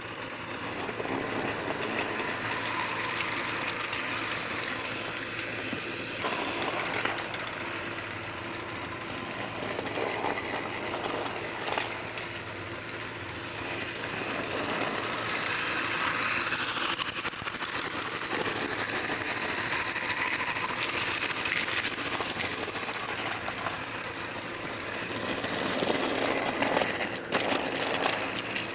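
Battery-powered Plarail toy trains running on plastic track: a steady, dense mechanical rattle of the small motors, gears and wheels.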